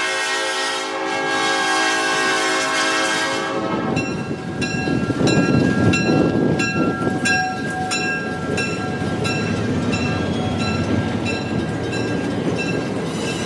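Southern Pacific E9 diesel locomotive's air horn sounding a chord of several notes, held and then cut off about three and a half seconds in. After that a bell rings about twice a second over a steady rushing noise.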